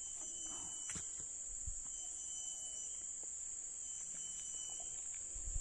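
A steady, high-pitched insect chorus, crickets or similar, trilling without a break. There is a faint click about a second in and a few low thumps near the end.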